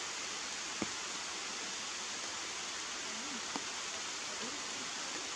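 Steady, even hiss of outdoor background noise, with two short clicks, one about a second in and one a little past three and a half seconds in.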